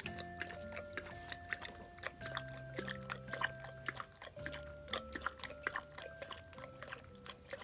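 Akita dog feeding at a plastic bowl: quick, irregular clicks and crunches from its mouth in the bowl. Soft background music with a slow melody plays underneath.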